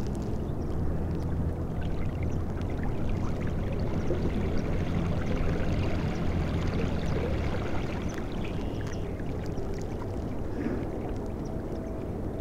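Water rushing and lapping along a moving kayak's plastic hull, with the low steady hum of an electric trolling motor through the first seven seconds or so that then fades.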